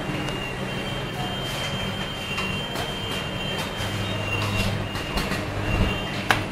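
WTS-2E automatic soldering machine running: a steady hum with a thin high whine over it, growing louder about four seconds in, and a few sharp mechanical clicks, the loudest near the end.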